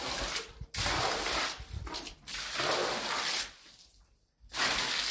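Yard sweeping: a broom scraping across the ground in a run of long, noisy strokes, about four of them with short pauses between.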